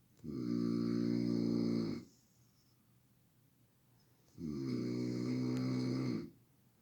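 A sleeping person snoring loudly: two long, buzzing snores about four seconds apart, each lasting close to two seconds.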